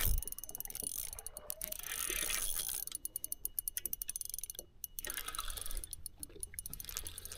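Spinning reel cranked on a steady retrieve: a fast, fine ticking whir from the reel's gears, with a brief break a little past halfway.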